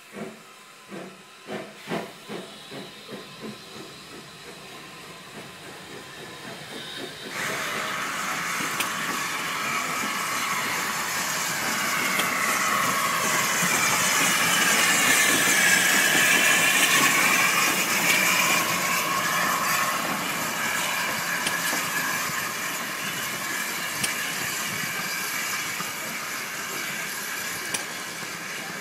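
A steam locomotive's exhaust beats, about two chuffs a second, fading over the first few seconds. About seven seconds in, loud steam hiss cuts in from the small 0-4-0 tank engine No 3 Captain Baxter. The hiss swells and eases off with a shifting tone as the engine passes close by.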